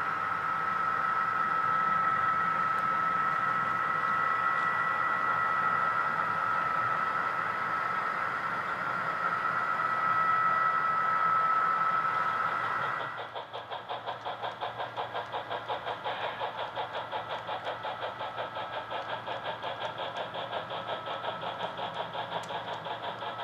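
Sound from HO scale model locomotives running on the layout. For about the first thirteen seconds there is a steady engine hum with a held whine. Then it changes abruptly to a fast, even chuffing of about four to five beats a second, as of a steam locomotive working.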